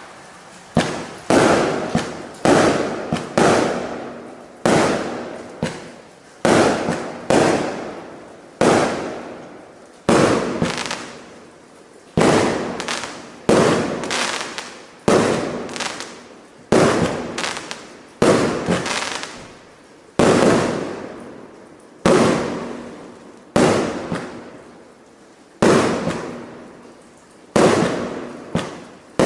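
PiroFF TRIUMPH multi-calibre firework cake firing shot after shot: a steady series of sharp bangs about every one to two seconds, each fading away, some coming in quick pairs.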